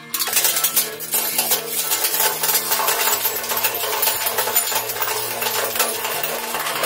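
Stacked glass sheets cracking and shattering as the steel spikes of a hydraulic spike press close on them: a sudden start of dense crackling and crunching, with many sharp snaps, that keeps on throughout. Background music plays underneath.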